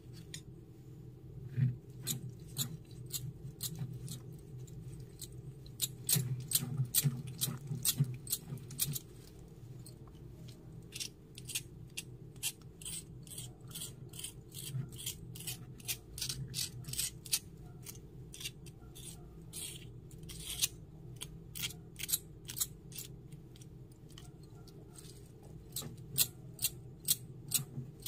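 Tiny stone pestle knocking and grinding in a miniature stone mortar, a run of sharp, irregular clicks and taps in bursts as white grains are crushed into a paste.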